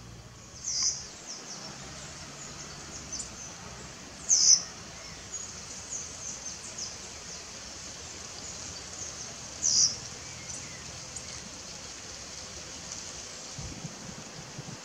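Rufous-tailed jacamar giving three short, sharp, high-pitched calls several seconds apart, with fainter high chirps in between.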